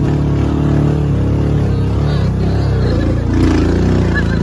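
Kawasaki Teryx side-by-side's V-twin engine running under load, its pitch rising and falling about halfway through. A brief clatter comes a little later.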